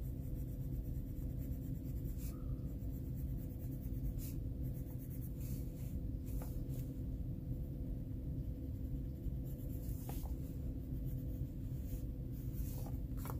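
Coloured pencil shading on paper in a colouring book, with soft, uneven scratchy strokes as dark brown is worked back into an area. A steady low hum runs underneath.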